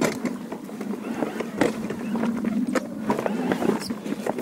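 Electric mountain bike ridden over a rocky, rooted trail: a steady low hum from the drive under an irregular clatter of knocks and rattles as the tyres and frame hit stones.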